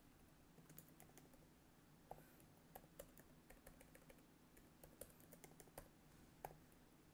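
Faint keystrokes on a computer keyboard: a dozen or so scattered taps at an uneven pace while typing.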